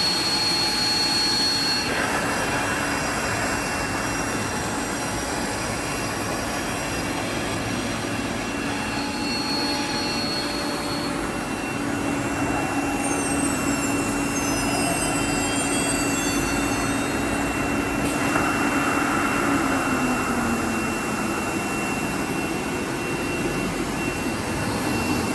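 Linear ATC CNC router running, a steady machine noise with several whining tones. About halfway through, some of the tones glide down in pitch and one glides up, and a lower tone drops in pitch a little later.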